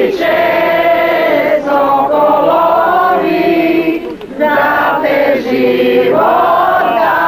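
A small crowd of men and women singing together, in long held phrases with brief pauses between them.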